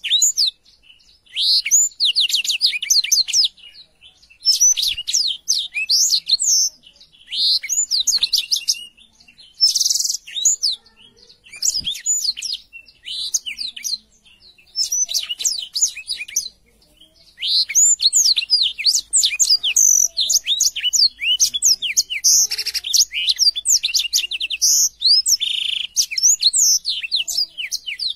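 Black-throated canary (blackthroat, Crithagra atrogularis) in full song: rapid, high twittering phrases a second or two long, separated by short pauses at first and running on almost without a break in the second half.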